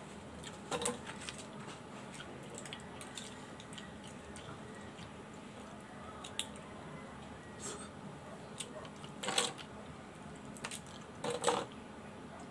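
Boiled scallop shells clicking and scraping as they are handled and pried apart by hand. Three louder brief noisy sounds stand out, one about a second in and two in the last few seconds.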